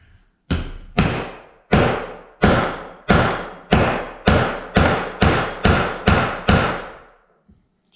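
A 16-ounce claw hammer striking a steel bearing punch tool about a dozen times, driving a new wheel bearing into a Polaris RZR bearing carrier. Each blow rings briefly, and the blows come slightly faster toward the end. The bearing is going in straight and evenly, not pushing out in the middle.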